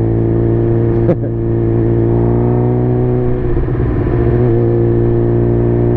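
2007 Suzuki GSX-R's inline-four running through an M4 exhaust at a steady, even engine speed while riding, with a brief click about a second in.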